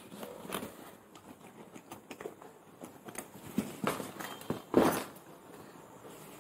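Plastic packaging crinkling and a nylon motorcycle fuel tank bag being handled, with scattered small knocks; the loudest knock comes a little before five seconds in.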